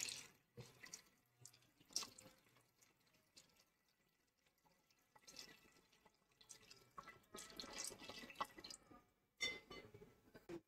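Tamarind pulp squeezed by hand, its juice trickling and dripping into a pot of sambar: faint, in short spells, with a small cluster of splashes near the end.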